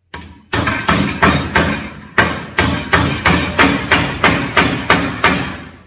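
Hammer driving a small roofing-felt nail through a sheet-metal balcony cover into a chipboard board: about fifteen quick blows, roughly three a second, with a brief pause about two seconds in.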